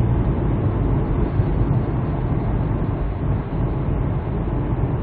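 Steady low rumble of engine and tyre noise heard inside the cabin of a 2007 Hyundai Santa Fe driving through a road tunnel, while it pulls smoothly up a slight climb.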